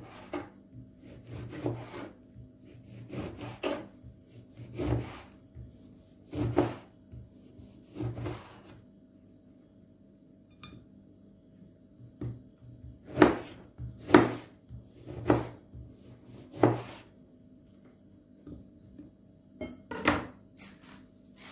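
Serrated kitchen knife sawing through an orange and knocking on the cutting board, a separate stroke with each slice, about one every second or so, with a pause in the middle.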